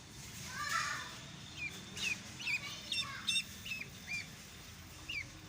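Duckling peeping: a run of about ten short, high chirps, coming in clusters after a soft first second.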